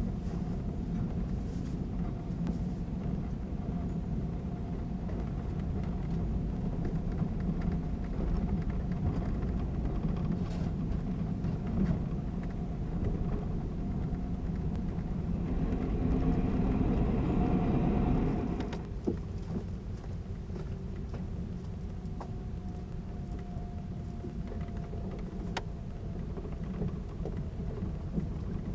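Running noise inside a 583-series electric sleeper train, heard from a berth above a motor car's bogie: a steady rumble of wheels on rail with a faint steady hum. It grows louder a little past halfway, then drops off suddenly.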